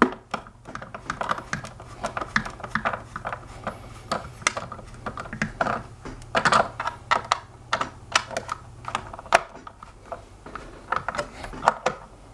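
Irregular clicking and small knocks of a hand screwdriver driving a screw into a hoverboard's plastic shell, with hands handling the shell.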